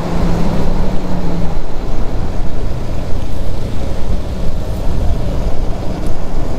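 Riding noise of a Bajaj Pulsar F250 single-cylinder motorcycle on a mountain road: heavy wind rushing over the microphone with the bike's steady hum underneath, clearest in the first second and a half.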